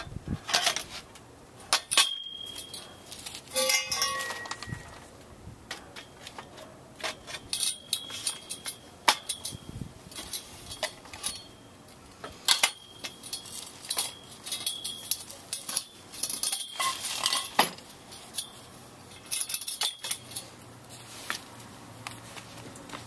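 Galvanized steel tubes of a compost tumbler stand knocking and clinking together as they are handled and fitted, irregular sharp metal knocks, several with a brief ring.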